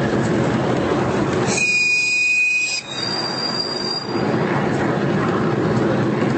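Ride-on miniature railway train running on its track, a steady rumble of wheels on rail. About a second and a half in, a high-pitched wheel squeal sets in as the train takes a curve. It jumps higher about three seconds in and dies away about four seconds in.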